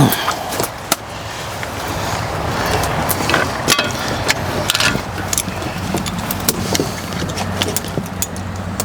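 A steady engine-like hum runs throughout, with scattered sharp metallic clicks and knocks from hand-tool work.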